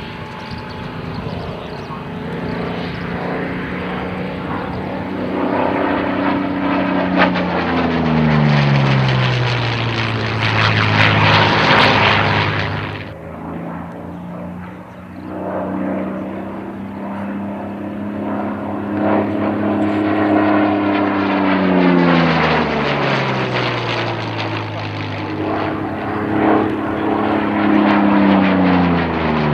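Curtiss P-40N Kittyhawk's Allison V-12 engine and propeller running hard through display passes, the engine note dropping in pitch each time the fighter goes by, about three times. Near the middle a loud rushing noise builds and then cuts off suddenly.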